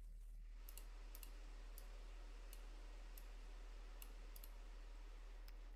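Faint computer mouse clicks, about ten spread irregularly, some as quick double clicks, over a steady low electrical hum.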